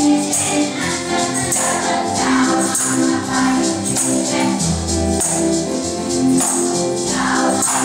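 Children's choir singing together with acoustic guitar accompaniment, and a jingling percussion keeping a regular beat.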